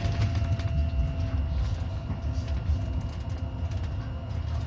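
Stadler Citylink Class 399 tram-train heard from inside its cab as it runs along the track: a steady low rumble of wheels on rail, with a thin steady high tone and scattered light clicks over it.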